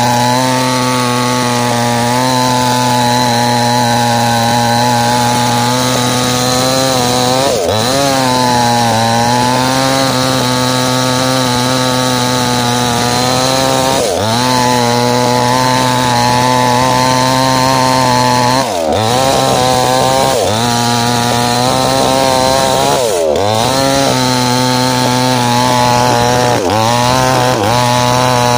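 A small two-stroke chainsaw runs at high revs while cutting into ironwood. Its pitch dips briefly and recovers several times as the chain bogs in the dense wood.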